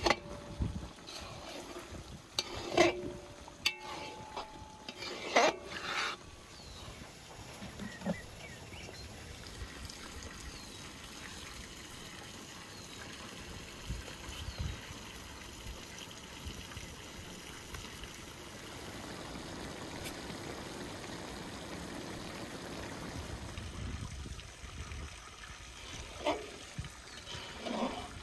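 Metal spatula knocking and scraping against a large metal cooking pan, with short ringing clinks, through the first few seconds and again near the end. In between there is a steady, watery trickling hiss.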